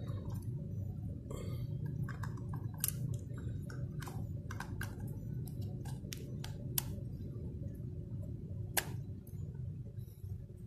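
Sharp plastic clicks and handling rustle from a GoPro Hero 7 Black action camera and its plastic mounting frame being handled, with scattered clicks through the middle and a louder click near the end, over a steady low background hum.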